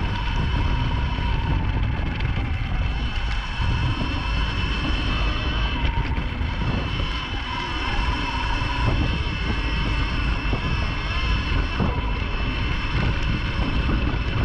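Segway X260 electric dirt bike being ridden, its motor giving a steady high whine over a low rumble of wind buffeting the microphone.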